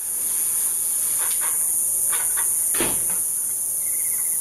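Steady, high-pitched drone of insects, with a few soft rustles and one brief thump just past the middle.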